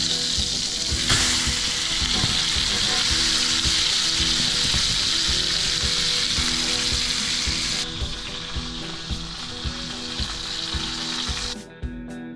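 Steaks sizzling on a hot grill, freshly flipped. The sizzle thins about eight seconds in and drops away near the end.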